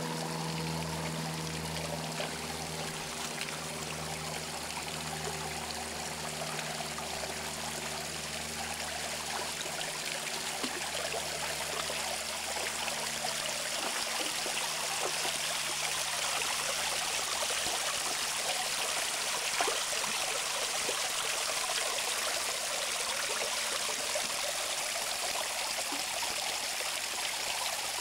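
Creek water trickling and running over shale ledges: a steady, even rush of water. A faint low hum lies underneath and fades out about halfway through.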